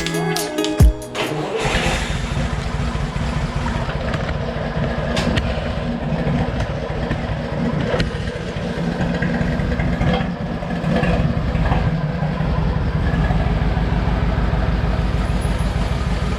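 Freshly rebuilt Nissan TD42T 4.2-litre inline-six turbo-diesel coming to life about two seconds in and running with a steady diesel clatter, louder again from about twelve seconds on.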